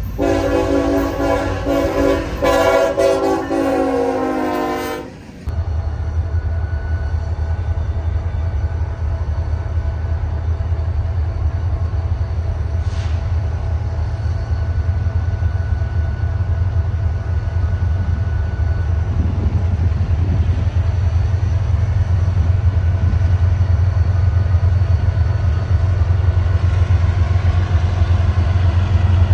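Diesel locomotive air horn sounding a multi-note chord for about five seconds, then cutting off. It is followed by the steady deep rumble of a diesel locomotive running, which grows a little louder near the end.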